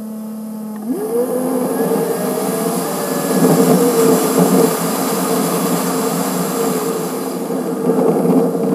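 Sped-up sound of a car engine with road noise: the engine idles with a steady hum, then about a second in its pitch climbs sharply as the car pulls away, and it runs on at the higher pitch.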